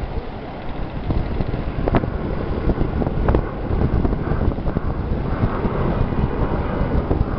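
Wind buffeting the microphone as a rough, uneven low rumble, with a couple of sharp knocks about two and three seconds in.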